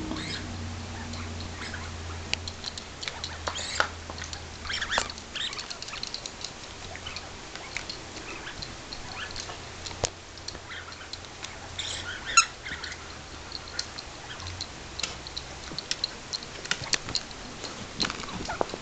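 Dogs playing rough over toys: scattered scuffling and clicking with short high squeaks, the loudest a little past the middle, over a steady low hum.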